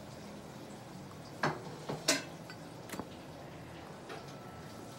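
Tobacco pipe being lit and drawn on: a few short, soft puffing pops from the smoker's lips on the stem, spaced about half a second to a second apart.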